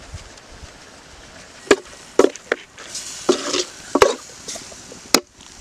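Metal spoon stirring raw chicken pieces and spice powder in a metal cooking pot, scraping and knocking sharply against the pot about five times.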